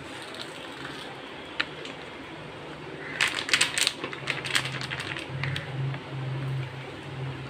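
Gram flour being shaken into a steel bowl of spiced onion slices. A quick run of sharp clicks and rattles starts about three seconds in and lasts a second or two, over a low steady hum.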